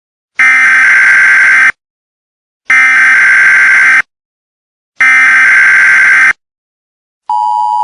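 Emergency Alert System SAME header: three harsh, identical data buzzes of about a second and a quarter each, with a second of silence between. About half a second before the end, the steady two-tone EAS attention signal starts.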